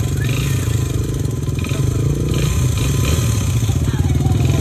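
Honda XR100R dirt bike's single-cylinder four-stroke engine idling steadily with a rapid, even firing beat, the bike standing still.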